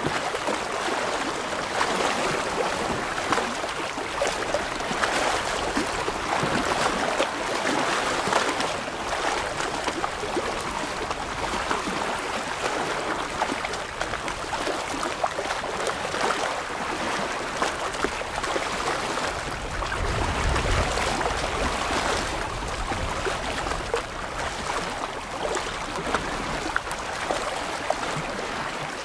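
Small waves lapping and splashing against shoreline rocks: steady gurgling, dotted with many small splashes.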